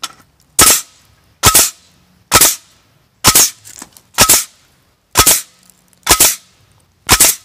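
Pierce 21-degree pneumatic framing nailer driving nails into wooden boards: eight sharp shots, about one a second, firing without jams.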